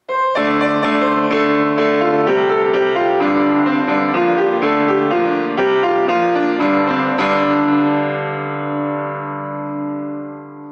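Keyboard music: a short passage of sustained notes and changing chords, ending on a chord struck about seven seconds in that is held and fades away.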